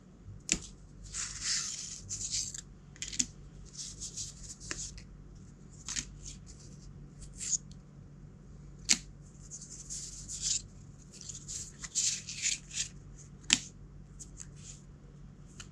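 Printed cardboard board-game scenery pieces handled and slid over one another: irregular scraping and rustling, with a few sharp clicks as the edges tap together.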